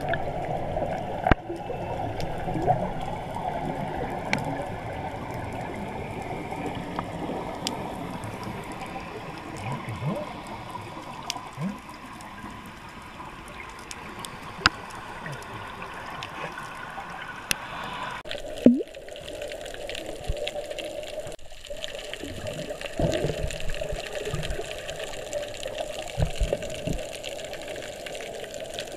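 Underwater sound from a camera under the sea: a steady muffled wash of water with short rising bubble gurgles and scattered sharp clicks. The sound changes abruptly about 18 seconds in.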